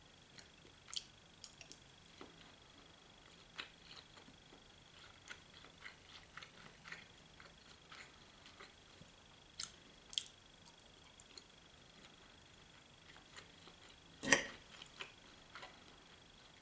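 Quiet chewing and eating: scattered faint wet clicks and smacks of a mouth working on food, with one sharper, louder click about fourteen seconds in. A faint steady high-pitched whine runs underneath.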